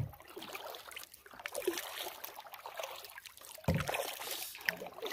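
Canoe paddling on a lake: water swishing and trickling off the paddle blade, with a dull low thump at the start and another about three and a half seconds later.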